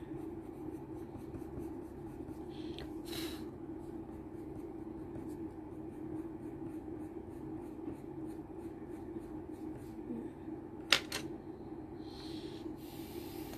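Colored pencil shading on paper in a few brief scratchy strokes, over a steady low hum. A single sharp tap about eleven seconds in is the loudest sound.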